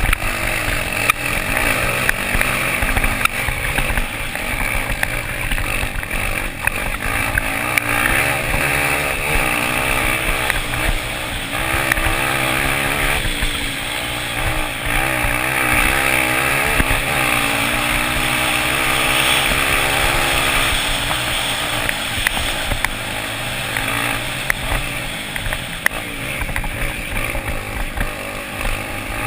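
Velocross racing motorcycle engines running hard, their pitch rising and falling as the riders rev through the gears and back off into corners.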